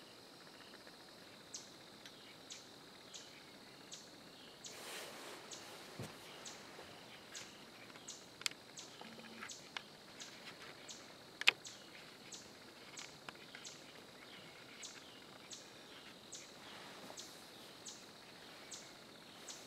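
Faint dusk field ambience: insects droning steadily on one high pitch, with a bird repeating a short high chip note about twice a second. A sharp click about halfway through and a couple of soft rustles.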